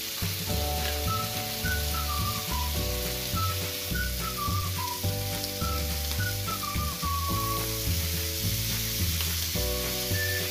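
Mixed seafood sizzling steadily in a hot frying pan, under background music with a bass line, held chords and a high melody.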